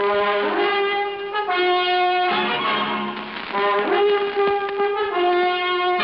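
Brass music playing held chords that shift every second or two: the radio drama's musical bridge opening a new act.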